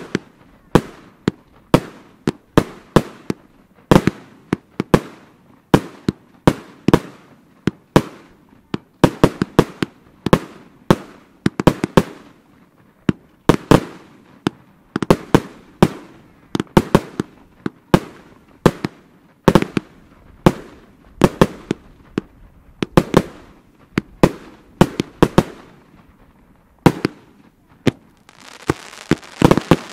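Firework batteries (multi-shot cakes) firing in rapid succession, a sharp bang about two to three times a second as shots launch and break. A steady hiss joins near the end.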